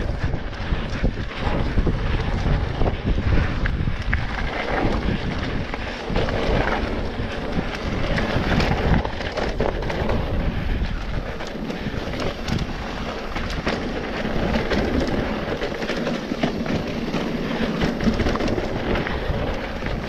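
Wind buffeting the camera's microphone on a mountain bike riding fast down a dirt trail, with tyre rumble and frequent small knocks and rattles from the bike over bumps.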